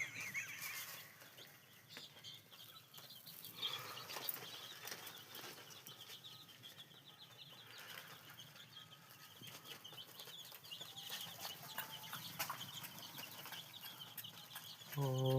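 Faint farmyard sounds: hens clucking softly, with a run of faint high chirping. Right at the end a cow starts a loud, long moo.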